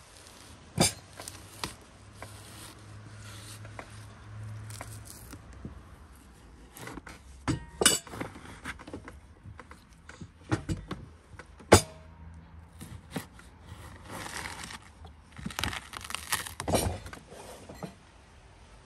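Kitchen knife cutting into a whole watermelon, the blade scraping through the rind, with scattered sharp clicks and clinks, three of them loudest.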